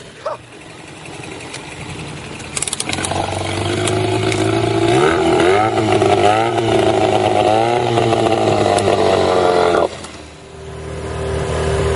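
Small Mercury outboard motor running, its pitch rising and falling as the throttle is opened and closed, then breaking off suddenly about ten seconds in. A steadier engine hum builds after it.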